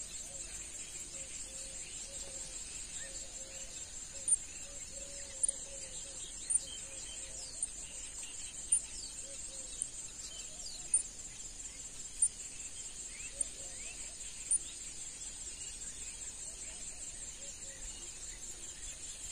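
Pond-side insect chorus: a steady, high trilling. Over the middle of it come about nine short, sharp high chirps, a second or so apart, with birds calling faintly in the background.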